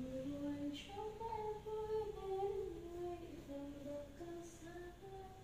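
A woman humming a tune, a string of held notes that step up and down in pitch.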